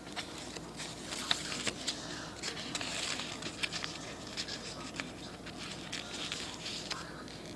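Origami paper rustling and crackling as hands fold, crease and tuck the folded units into one another, with small sharp ticks from the paper now and then.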